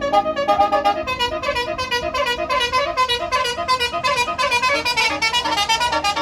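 Bus telolet horn (Basuri multi-tone horn) playing a fast melody of short notes, several notes a second, with the tune changing about a second in.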